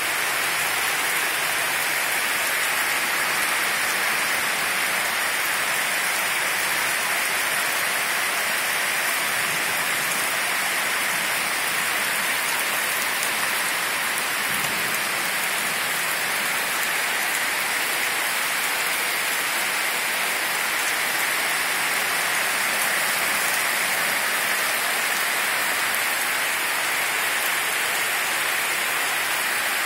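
Heavy thunderstorm rain pouring down steadily, an even hiss with no letup.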